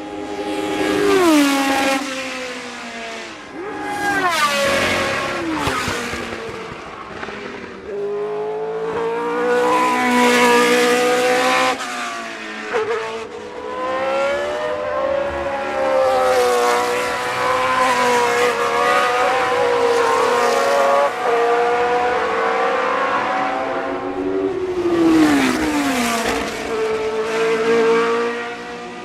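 1970s Formula One cars' racing engines running at high revs, accelerating and passing by, with overlapping engine notes. The pitch drops sharply as a car passes or shifts down, near the start, about four seconds in and again near the end.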